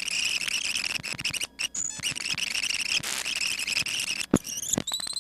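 High-pitched warbling, chirping squeal with many crackling clicks through it. It starts suddenly, breaks off briefly a few times, and glides upward near the end.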